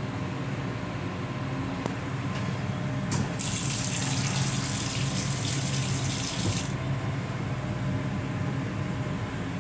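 Faucet on a Metro-North M8 railcar restroom sink running into the basin for about three seconds, then cutting off abruptly.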